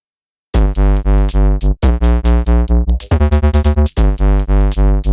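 Electronic background music with a pulsing bass at a steady beat of about four notes a second, starting about half a second in.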